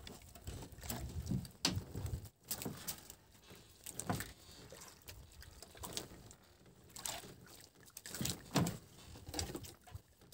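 Irregular knocks, clatters and rubbing, with faint water sounds, from a freshly caught fish and fishing line being handled in a small boat.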